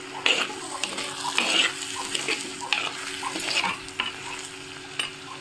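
A steel spoon stirring chopped shallots, drumstick and brinjal pieces sautéing in oil in a clay pot: a steady sizzle with irregular scrapes and clicks of the spoon against the pot.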